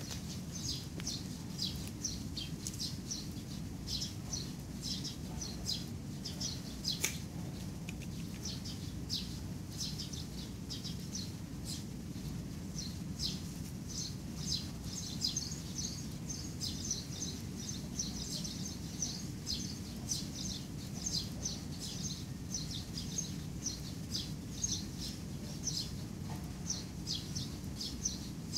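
Small birds chirping all through in short, high, closely repeated notes, over a steady low background hum, with one sharp click about seven seconds in.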